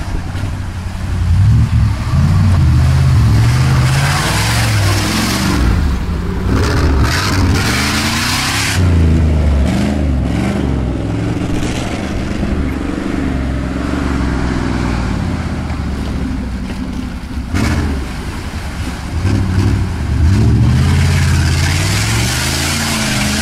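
Jeep Grand Cherokee ZJ's 5.2-litre V8, an engine at the end of its life, revving hard, its pitch rising and falling over and over. Bursts of rushing noise come over it twice.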